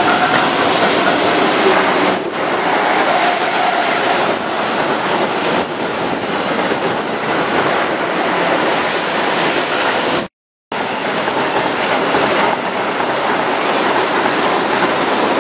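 A Keihan 8000 series electric train running past close by: a loud, steady noise of wheels rolling on the rails. It breaks off briefly in a short gap of silence about ten seconds in.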